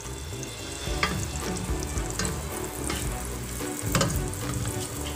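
Butter melting and sizzling in a hot pan, with a utensil stirring and knocking against the pan about once a second.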